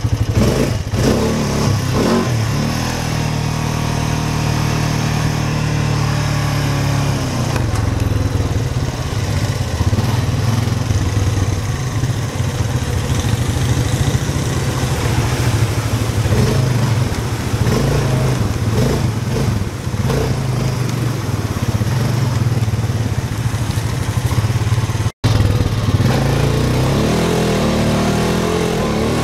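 ATV engine running under way, holding a steady pitch with a few shifts in engine speed. The sound cuts out for an instant near the end.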